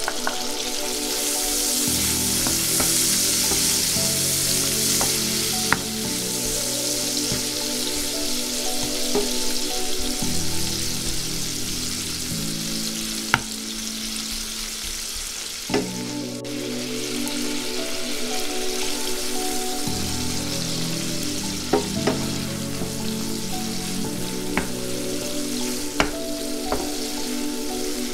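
Shrimp and sliced garlic sizzling steadily in hot oil in a frying pan, stirred with a wooden spoon that knocks sharply against the pan a few times. Soft background music with slowly changing held chords plays underneath.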